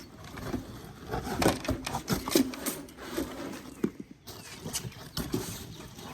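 Stripped bare copper wire being handled and coiled, making irregular knocks and clinks.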